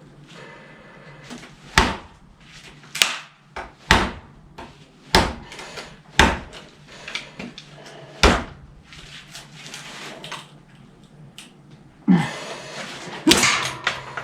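Sharp, heavy knocks, about eight at uneven intervals of a second or two, from blows dealt in a pocketknife destruction test.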